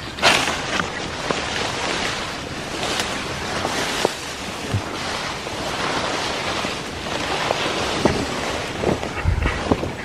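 Leaves and tall grass rustling and swishing continuously as someone pushes through dense undergrowth, with scattered small snaps and knocks.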